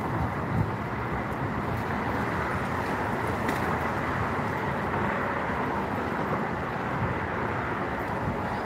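Steady rush of road traffic from the highway bridge running alongside, with a low fluttering rumble of wind on the microphone underneath.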